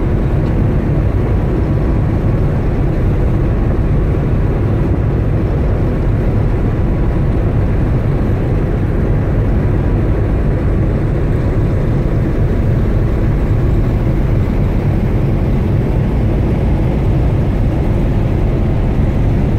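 Steady low rumble aboard the car ferry Ritsurin 2 while it is underway, the ship's engine drone mixed with wind on the open deck, with a faint steady hum running through it.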